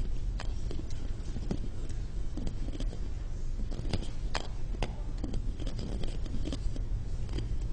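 Small balls being played with in the hand, knocking together in a run of irregular sharp clicks over a low steady hum.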